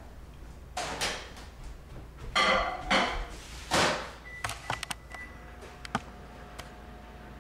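A microwave oven being loaded and started: clattering and knocks as the door is opened and shut with a thunk, then a beep and keypad clicks. About five seconds in, the microwave starts running with a steady hum.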